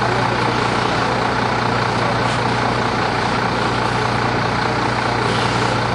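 Fire apparatus's heavy diesel engine running steadily, a constant low drone with no change in pitch.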